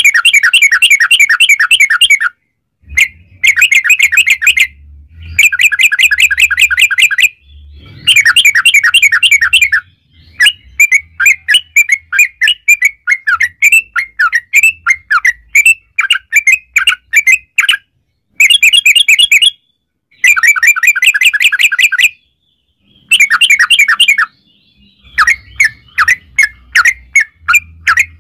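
Yellow-vented bulbul (trucukan) singing in long rapid-fire trills: loud bursts of fast chattering notes, each lasting about two seconds and separated by short pauses. Between about 10 and 18 seconds in, it switches to a looser run of separate, spaced notes before the dense bursts return.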